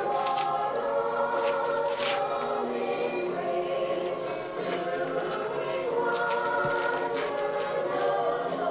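A choir singing slow, held notes.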